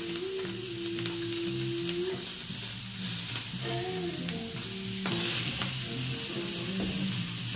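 Sausages frying in a pan, sizzling steadily while they are turned.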